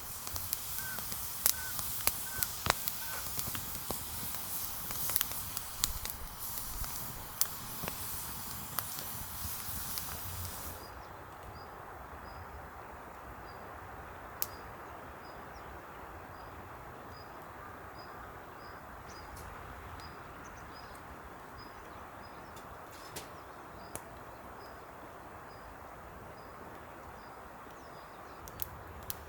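Rain pattering with many sharp drips for about ten seconds, then an abrupt change to a softer, steady rain hiss. A faint high chirp repeats about twice a second through the second part.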